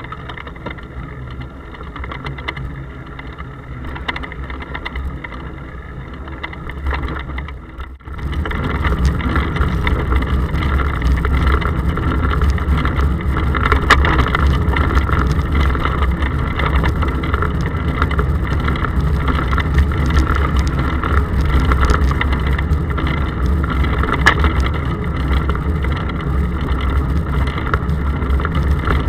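Wind and road rumble picked up by an action camera in its case on bicycle handlebars while riding. About eight seconds in it drops out for a moment and comes back louder, with more hiss.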